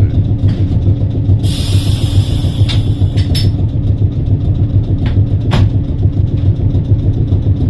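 Heritage electric tram running along the track, heard from inside the car, with a steady low rumble throughout. About a second and a half in comes a short burst of hiss, followed by several sharp clicks and knocks.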